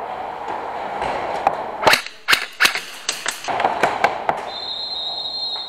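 Airsoft guns firing: an irregular string of sharp cracks, about eight in two seconds, over the steady hubbub of the hall.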